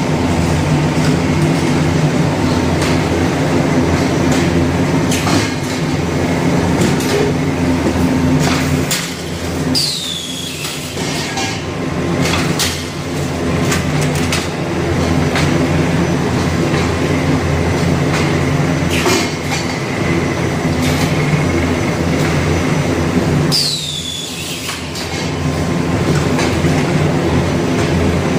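Automatic corrugated-carton folder-gluer and stitching machine running: a steady mechanical hum with irregular clicks and clacks. Twice the level dips briefly and a high whine falls in pitch.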